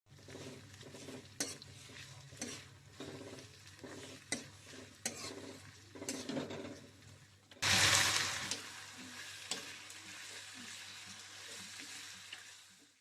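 Stirring in a pan, with scattered taps and clicks of a utensil. About seven and a half seconds in comes a sudden loud sizzle, as of food going into hot oil, which settles into a steady, quieter sizzle.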